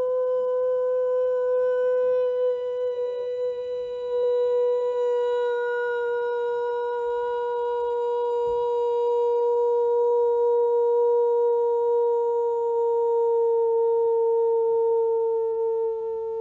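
A woman singing a vibrational mantra, holding one long unbroken note with a stack of ringing overtones, its pitch sinking very slightly as it goes. It is the harmonic or overtone singing used in sound healing.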